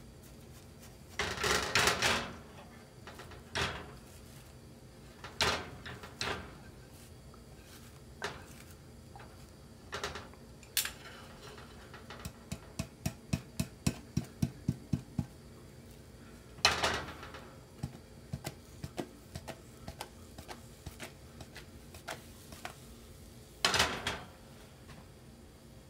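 A utensil knocking and scraping against a nonstick frying pan as an omelet is folded and rolled. Midway there is a quick run of light knocks, about four a second, and a few louder clunks come near the start and toward the end.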